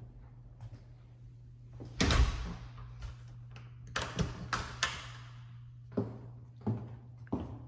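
Footsteps on a ceramic tile floor, with a loud single thud about two seconds in and a quick run of sharp knocks around four to five seconds, then evenly paced steps near the end. A steady low hum runs underneath.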